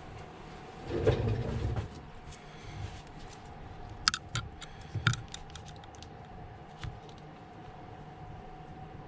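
Small tools and phone parts being handled on a repair bench: a brief rustle about a second in, then a few sharp light clicks around four and five seconds, over a faint steady hum.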